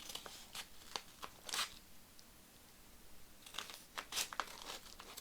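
A mailed package being opened by hand: short bursts of tearing and crinkling packaging, in two spells with a short pause between.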